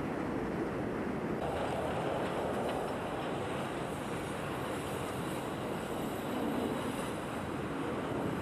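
Elevated subway train running past on its steel elevated track, a steady noise that picks up more high-pitched content about a second and a half in.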